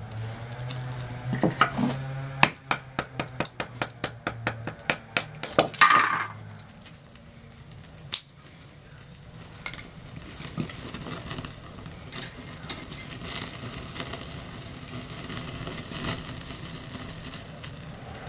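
A quick run of sharp wooden clicks, about four a second, for the first six seconds as a knife works a wooden stick. After that comes the steady crackle and hiss of a wood-gas camping stove's fire with sausages sizzling on its grill, with scattered small ticks.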